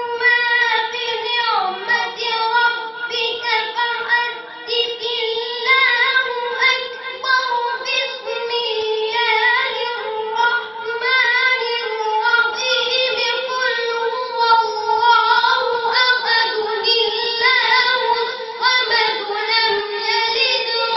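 A boy's high voice reciting the Quran in melodic chant (tilawat), held on long ornamented notes that wind up and down in pitch.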